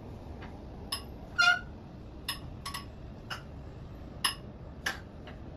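A series of light ringing clinks, like china or glass being tapped, about nine at irregular intervals, the loudest about a second and a half in, over a steady low background hiss.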